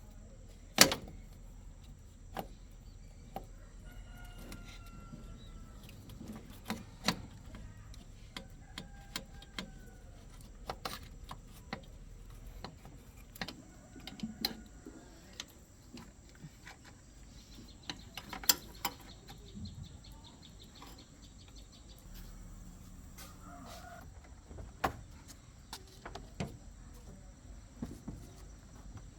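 Scattered sharp clicks and clinks of hand tools on metal, the loudest about a second in, with chickens clucking faintly in the background.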